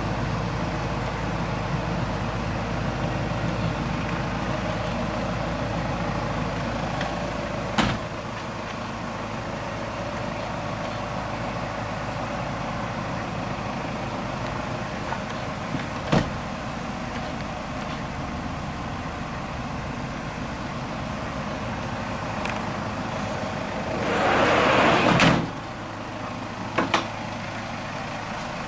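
Toyota Hiace van's sliding side door rolling along its track and shutting with a sharp thump near the end, followed by two quick clicks, over a steady low hum. A couple of single knocks come earlier.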